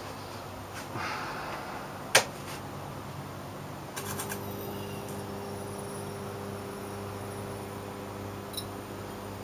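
Electric arc struck inside an incandescent light bulb. There is a sharp snap about two seconds in, then a quick crackle of snaps about four seconds in as the bulb flashes and the arc takes hold, followed by a steady electrical hum while the arc keeps burning.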